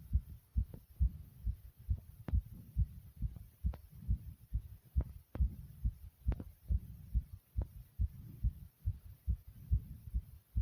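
A human heartbeat, fast and strong: a regular run of low thumps, about two a second, over a low rumble between beats.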